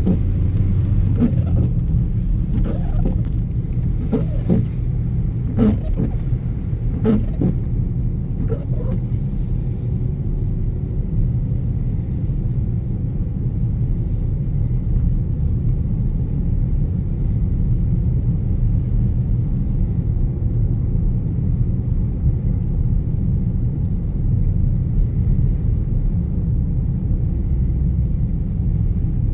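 Blizzard wind buffeting the microphone: a steady low rumble, with a few short clicks and knocks in the first nine seconds or so.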